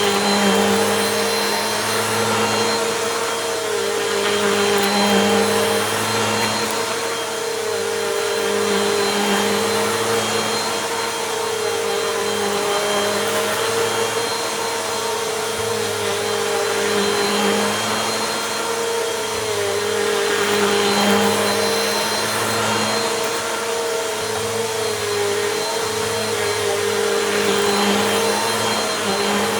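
Bissell Compact vacuum cleaner running steadily on a rug, its motor hum dipping slightly and its airflow rising and falling every few seconds with back-and-forth passes. Faint crunching as it sucks up gritty dirt.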